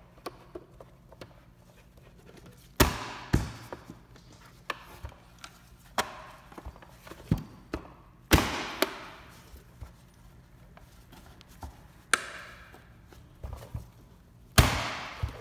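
Painted plastic cap of a 2012–2015 Honda Civic side mirror being pressed back onto the mirror housing: a series of sharp plastic knocks and snaps as its clips are pushed home, the loudest about three seconds in, about eight seconds in and near the end.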